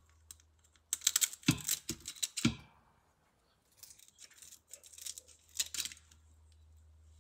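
Kitchen scissors snipping the antennae off prawns over a stainless steel bowl, with crisp clicks of the blades and shells in two bursts. The first burst is louder and carries two dull knocks.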